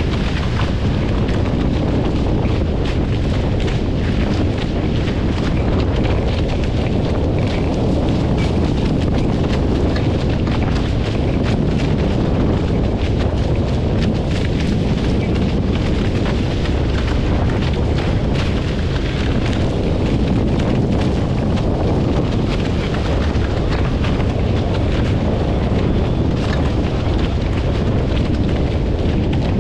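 Heavy wind buffeting the microphone on a Hobie Fox sailing catamaran under way: a loud, steady low rumble with hiss, unbroken throughout.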